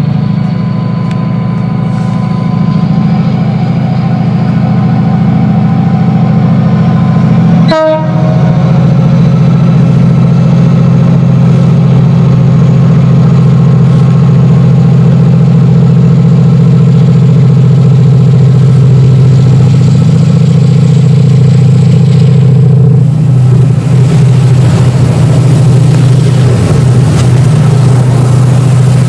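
Class 68 diesel-electric locomotive's Caterpillar V16 engine working hard, a loud, steady, deep drone as it approaches and passes below. A brief sharp noise with a falling pitch comes about a quarter of the way in. Near the end the sound turns rougher and hissier as the locomotive passes underneath.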